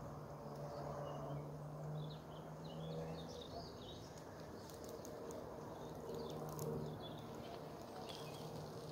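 Bees buzzing around fruit-tree blossom, a faint low hum that fades a few seconds in and comes back near the end, with small birds chirping in the background.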